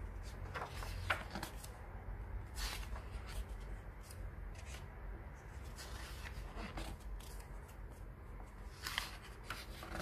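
Pages of a graphic novel being turned by hand: a short paper rustle every second or two, at uneven intervals, over a low steady hum.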